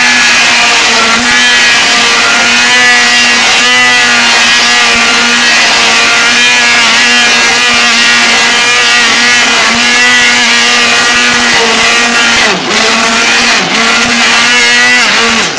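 Immersion (stick) blender running steadily in a stainless steel pot, mixing lotion. Its motor hum dips briefly in pitch about three times near the end as it takes load.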